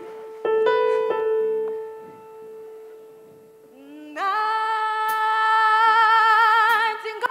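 Background music: sustained keyboard notes, then about four seconds in a singing voice slides up into a long held note with vibrato.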